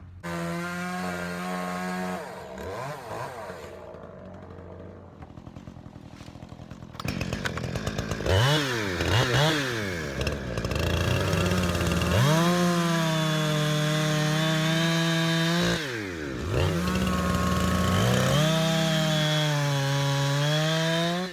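Gas chainsaw running, revved up and down several times, then held at high revs for long stretches as it cuts wood, dropping off briefly about two-thirds of the way through before going back up.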